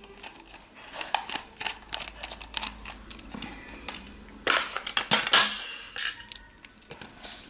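Light clicks and small clatter of a precision screwdriver working the small screws out of the plastic housing of a BMW E90 iDrive controller, with a louder run of knocks and rattles about four and a half to five and a half seconds in.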